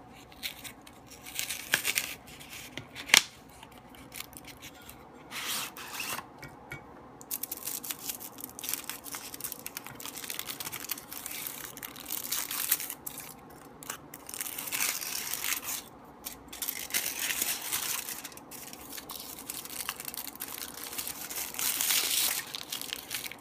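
Cardboard sleeve of a chocolate bar being opened, then the thin aluminium foil wrapper crinkled, torn and peeled off the bar in long irregular stretches of crackling and rustling, which she has a hard time getting it out of. One sharp click comes about three seconds in.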